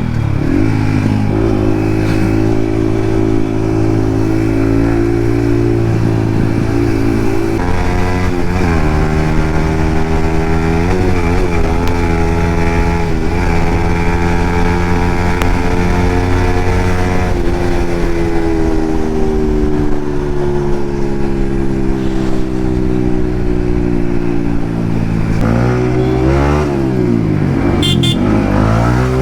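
Yamaha MT-15's single-cylinder engine with an Akrapovic exhaust, ridden on the road. The engine note holds mostly steady with slow pitch drifts as the throttle changes, then swings quickly up and down several times near the end.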